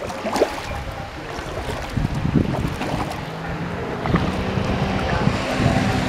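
Water slapping and splashing against a plastic kayak's hull as it rocks on a jet ski's wake, with wind buffeting the microphone.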